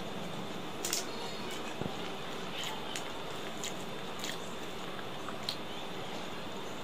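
Fingers mixing and kneading soft rice in a steel plate, with soft squelching and scattered small clicks, then chewing. A steady hiss runs underneath.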